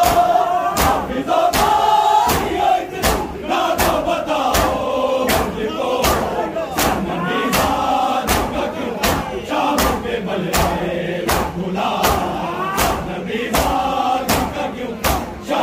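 A large crowd of men chanting a noha, a Shia mourning lament, together. Under it, open hands slap bare chests in matam, keeping a steady beat of sharp claps.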